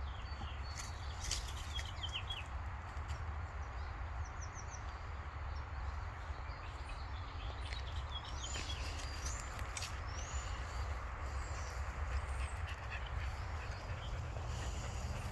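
Wild birds chirping and calling: a quick run of short high notes near the start and a few rising, curving calls about two-thirds of the way through, over a steady low rumble.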